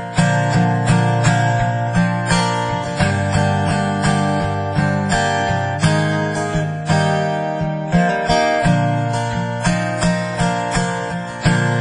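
Instrumental song intro: an acoustic guitar strummed in a steady, even rhythm, without vocals.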